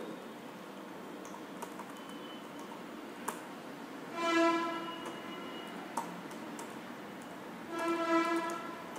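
Computer keyboard keys tapped a few at a time, faint separate clicks as a web address is typed. Twice, about four and eight seconds in, a steady pitched hum of about a second rises over the clicks.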